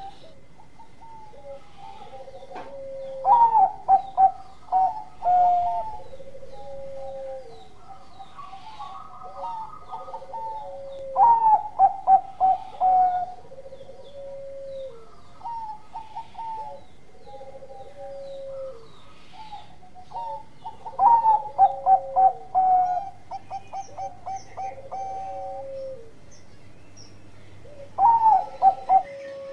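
Zebra dove (perkutut) singing its cooing song: four loud phrases, each a quick run of clipped notes that settles into longer held coos, coming about every seven to eight seconds. A fainter, lower coo repeats about every two seconds in between.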